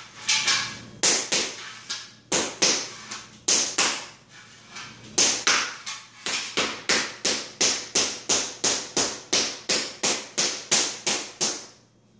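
Rubber mallet striking peel-and-stick vinyl floor planks, knocking a plank against a speed square to close the seam tight and press it down. Sharp knocks, irregular at first, then a steady series of about three a second from about five seconds in.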